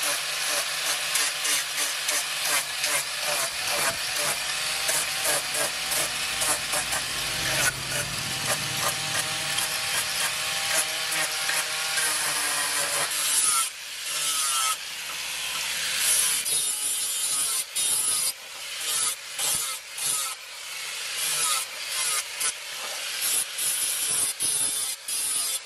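Angle grinder with a sanding disc shaping and smoothing a wooden knife handle: a steady scratchy rasp of abrasive on wood over the motor, its pitch wavering with the pressure. In the second half the sound comes in many short passes.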